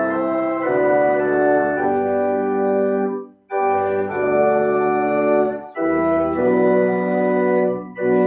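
Organ playing held chords in slow phrases, with short breaks between phrases about three seconds in, near six seconds and near the end.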